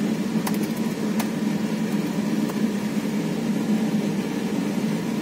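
A steady low mechanical hum, like a fan or motor running, with two short clicks in the first second or so.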